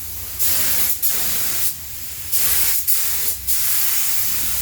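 Compressed-air spray gun spraying primer onto a car body in several short bursts, the hiss cutting in and out with each pull of the trigger.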